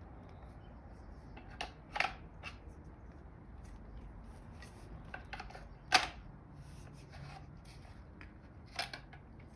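Sharp hard-plastic clicks and knocks at uneven intervals, the loudest about six seconds in: a pressure washer spray wand being pushed and twisted into its trigger gun, a fitting that is hard to rotate.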